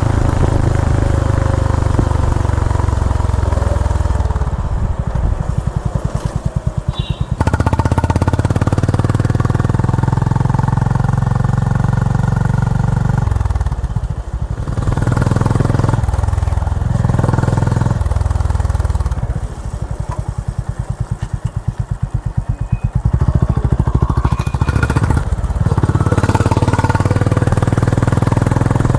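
Honda H'ness CB350's single-cylinder engine running through its exhaust on the move at highway speed. The throttle eases off several times, longest about two-thirds of the way through, and the bike then pulls strongly again.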